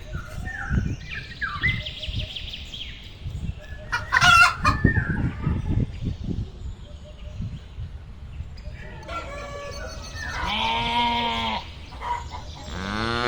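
Chickens clucking, with a rooster crowing in the second half: one long crow about ten seconds in and another starting at the end.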